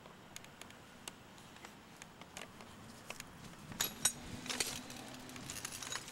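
Footsteps crunching through dry fallen leaves and litter, after a few scattered faint clicks. The crunching grows louder about four seconds in.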